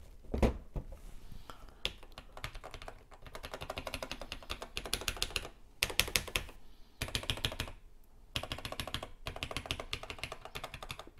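Keys of a TRS-80 Model 100 portable computer's keyboard clacking in quick runs of presses with short pauses between, as the keys are tested one after another. A single louder knock comes just after the start.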